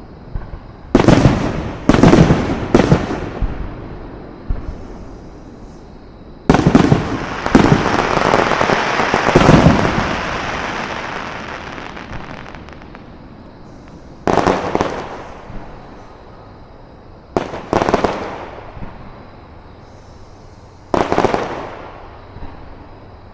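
Fireworks shells bursting overhead with sharp bangs. There are three quick bangs near the start, a dense volley about a third of the way in that trails off over a few seconds, and then single bangs every three to four seconds.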